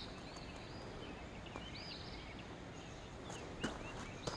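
Small birds chirping, short repeated calls over a steady outdoor background hum, with a couple of faint clicks near the end.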